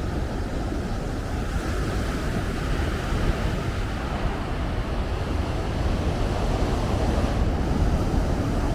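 Ocean surf breaking and washing up the shore, with wind rumbling on the microphone.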